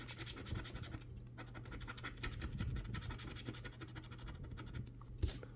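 A coin or scraper scratching the latex coating off a paper lottery scratch ticket: rapid, rasping back-and-forth strokes, with short pauses between patches.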